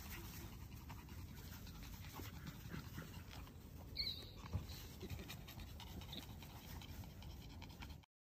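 Puppies playing and tussling, quiet scuffling sounds with a brief high squeak about four seconds in; the sound cuts off abruptly just before the end.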